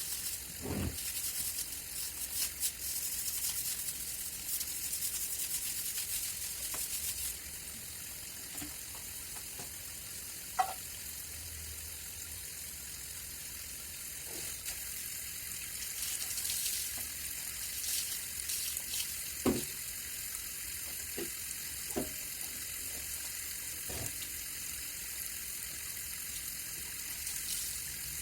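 Steady hiss of running or spraying water, with a few light knocks.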